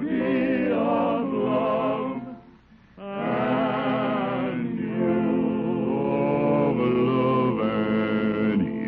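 Male barbershop quartet singing in close harmony, with a short break about two seconds in and a long held chord near the end. The sound comes from an old radio recording, cut off above the upper-middle range.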